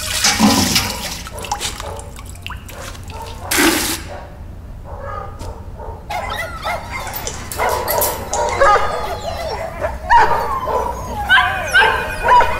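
Water poured and splashing over a puppy being bathed in a bucket, with one loud pour about three and a half seconds in. From about six seconds, puppies yelping and whimpering in many short, high cries.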